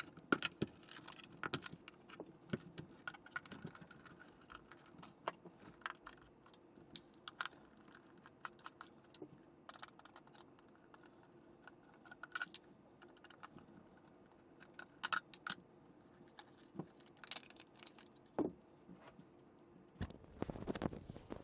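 Faint, scattered clicks, taps and rattles of a small plastic 12 V ceramic car heater's housing and parts being handled and taken apart by hand.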